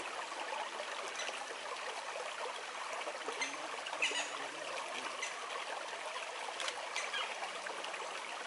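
Steady rushing noise of running water, like a stream, with a few short, high chirps scattered through it.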